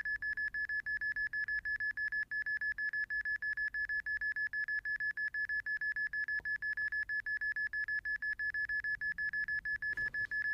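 Hidden-camera detector app on a smartphone sounding its alert: rapid, even beeping at one high pitch, several beeps a second. The beeping signals a high magnetic reading near a suspected device.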